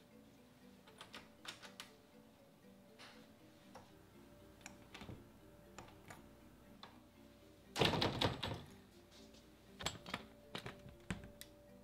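A metal doorknob on a louvered closet door being turned and jiggled: scattered sharp clicks, with a louder rattle about eight seconds in and more clicks near the end, over soft background music with repeating notes.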